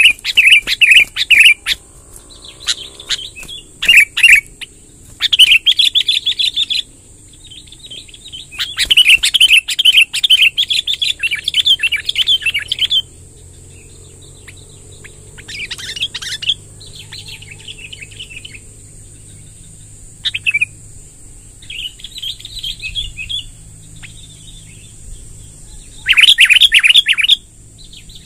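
Sooty-headed bulbul (kutilang) singing in repeated bursts of long, chattering, rolling song with short pauses between them, over a faint steady high hiss.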